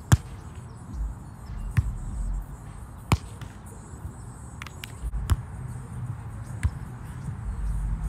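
A volleyball being struck during a rally: about five sharp smacks of hands and forearms on the ball, one every second or two, the first the loudest.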